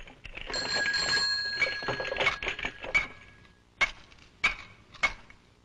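A bicycle bell jangling and ringing for about three seconds, followed by three hard, clacking footsteps about half a second apart on stone steps.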